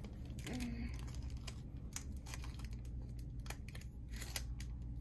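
Foil wrapper of a just-cut Pokémon booster pack crinkling and crackling in the hands as the cards are worked out, a scatter of short sharp crackles.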